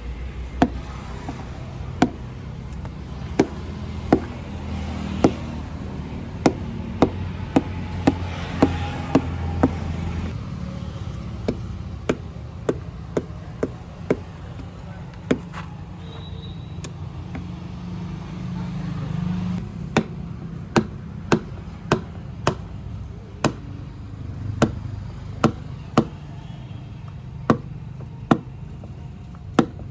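Diesel exhaust fluid (AdBlue) being poured from a bucket into the vehicle's DEF tank, over a steady low hum, with sharp clicks at irregular intervals, about one or two a second.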